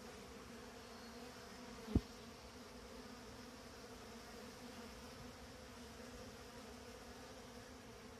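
Honeybees clustered outside a wooden hive, humming steadily in a low, faint drone; they are out on the hive front to cool off in the heat. A short, loud bump about two seconds in.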